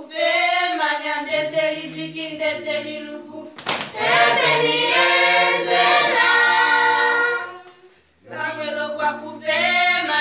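A group of voices singing a cappella in harmony, with one sharp hit about three and a half seconds in. The singing breaks off briefly around eight seconds in, then starts again.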